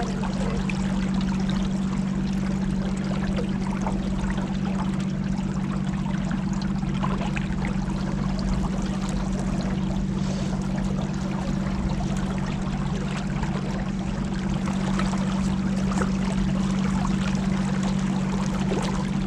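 Boat motor running at a steady cruising speed, a constant low hum, with water rushing past the hull.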